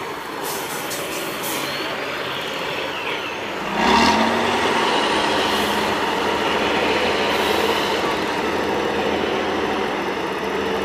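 Tatra 813 8x8 trial truck's diesel engine working under load, revving up sharply about four seconds in and then holding at the higher, louder level.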